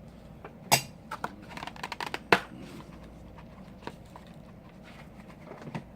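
Sharp clicks and light scraping taps of small tools and phone parts being handled while transferring components to a new iPhone 5c screen, with two louder clicks about a second and a half apart, then only faint occasional ticks.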